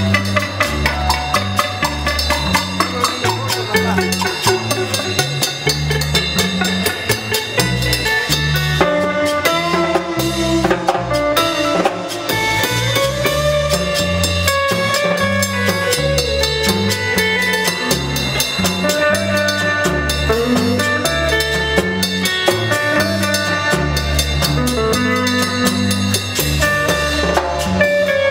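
Live instrumental Latin band music: an electric guitar plays the lead over a bass line and timbales with cymbal, and a metal güira scrapes the beat.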